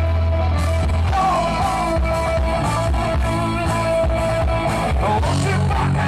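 Live rock cover band playing through outdoor stage speakers, with a voice singing over a steady drumbeat.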